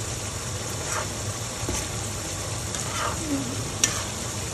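Chopped okra sizzling as it fries in oil in a wok, stirred with a slotted spatula that clicks against the pan a few times, most sharply a little before four seconds in. The okra is being fried to cook off its slime.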